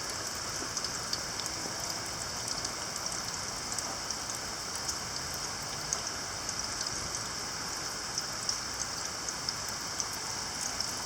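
A little downpour of rain falling steadily, with many small raindrop ticks scattered through it.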